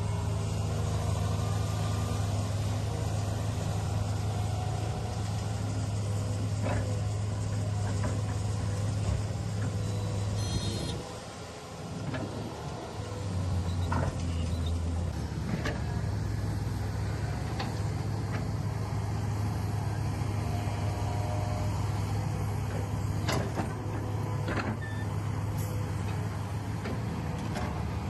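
Small RC excavator motors running with a steady hum, broken by scattered sharp clicks and knocks. The hum drops away for about a second near the middle, then comes back at a shifted pitch before settling.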